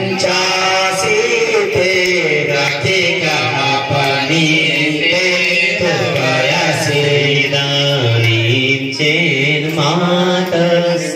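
Devotional mantra chanting, sung melodically by a voice with a steady musical drone beneath it.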